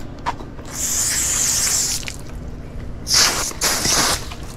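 Garden hose pistol-grip spray nozzle squeezed to rinse hands: one spray of hissing water lasting over a second, then two shorter sprays about a second later, near the end.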